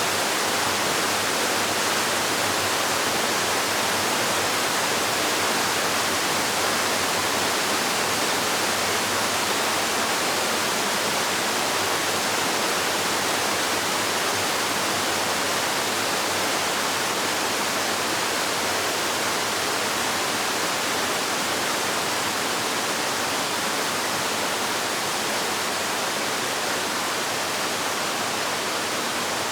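Waterfall, water falling and rushing in a steady, unbroken roar with no other sounds.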